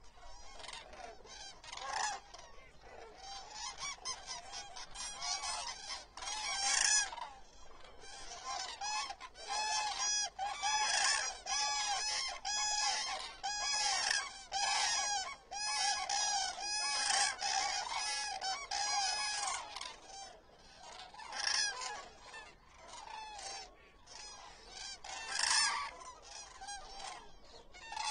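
A large flock of common cranes calling: many trumpeting calls overlap in a near-continuous chorus that is thickest through the middle and thins out near the end, with one more loud burst.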